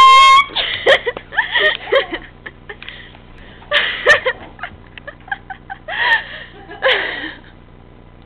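A kazoo blown loudly, its buzz sliding up in pitch and then holding steady before stopping about half a second in. Several short bursts of laughter follow.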